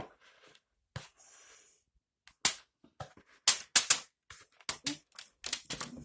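Kitchen utensils knocking and clicking against a mixing bowl and baking pan as a chocolate-coated biscuit mixture is tipped and scraped into the pan. A few faint clicks at first, then a run of sharp, irregular knocks from about two and a half seconds in.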